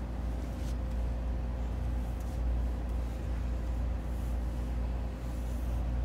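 Steady low hum with a faint, constant higher tone held over it.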